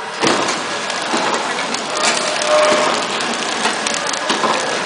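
KT-350 biscuit flow-wrap packaging machine running: a dense crackling clatter from its conveyor and plastic wrapping film, with irregular sharp clicks.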